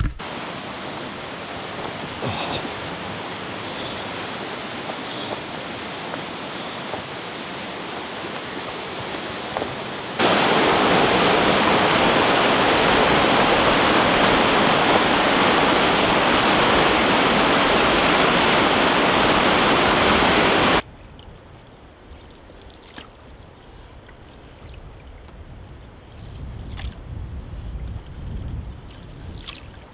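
Rushing water of river rapids, a steady hiss and rush that jumps much louder about ten seconds in, then drops abruptly about twenty seconds in to a quieter low rumble with a few faint knocks.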